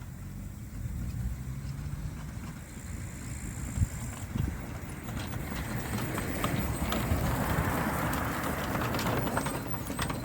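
Motorised hang glider trike with its engine running low and steady, joined about halfway through by a louder rushing noise with scattered knocks and rattles, as of the craft moving over the ground or through the air.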